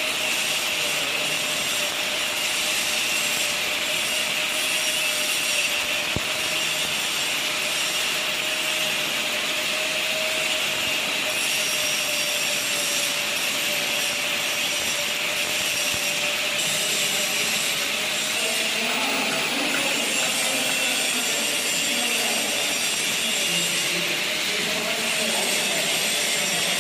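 Electric arc welding: the welding arc hissing steadily without a break, with a steady tone under it.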